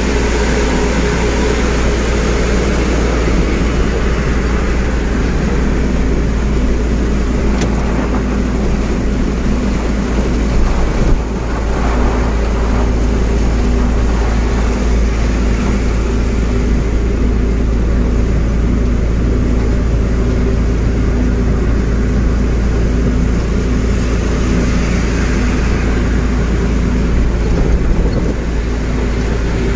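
Trailer truck's diesel engine running steadily at cruising speed, heard from inside the cab, over the hiss of heavy rain and tyres on the wet highway. A brief bump about eleven seconds in.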